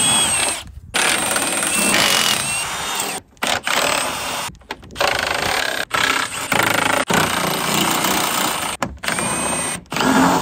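Milwaukee M12 cordless impact driver running in a string of bursts a second or two long with short pauses between, spinning out 10 mm bolts with a socket on an extension.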